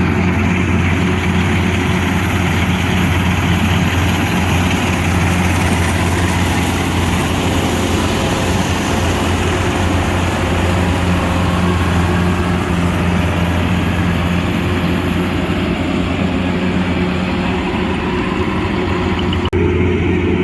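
Kubota DC105X rice combine harvester's diesel engine and machinery running steadily with a heavy, constant hum. The sound changes abruptly about a second before the end.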